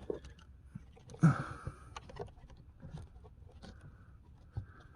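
Light clicks, scrapes and rustles of a plastic cabin air filter being worked into its housing behind the glovebox, with a brief grunt about a second in.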